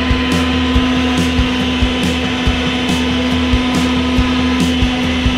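Worx WG520 12-amp corded electric turbine leaf blower running steadily: a constant motor hum under a rush of air.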